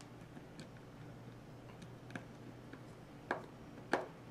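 Small clicks of a precision screwdriver working the Torx screws out of a Spyderco Endura 4's FRN handle: a few faint ticks, then two sharper clicks near the end.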